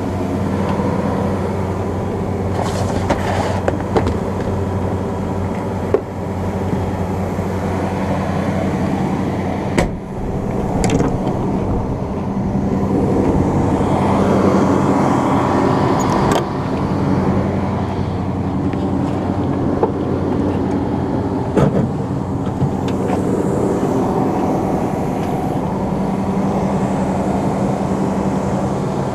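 John Deere 9500 combine running steadily while its grain tank unloads corn, a constant engine and machinery hum. A few sharp clicks and knocks sound over it.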